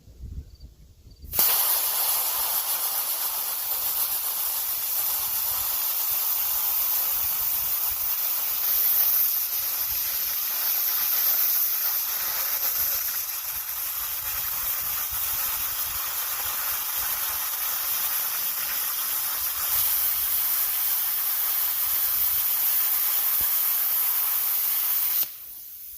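Plasma cutter cutting through 3/8-inch steel plate: a loud, steady hiss that starts about a second and a half in and cuts off suddenly shortly before the end.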